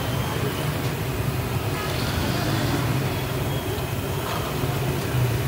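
Steady low rumble with an even hiss over it: street and traffic noise around a deep-frying food stall, with no distinct separate events.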